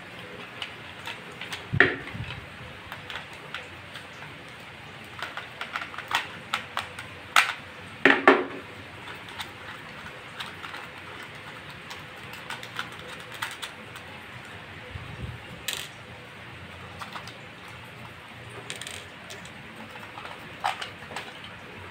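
Light clicks and taps from a gilded quartz table clock and its small parts being handled and set down on a wooden table. The loudest knocks come about 2 s and 8 s in.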